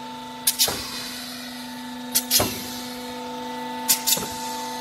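Hydraulic A-frame frame clamp press running with a steady hum from its hydraulic power unit, while its clamp cylinders are worked, giving three quick double clacks about a second and a half apart.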